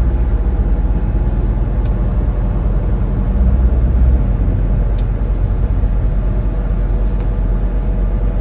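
Steady low rumble of a semi truck's diesel engine and drivetrain heard inside the cab, a little louder for a moment midway, with a few faint clicks.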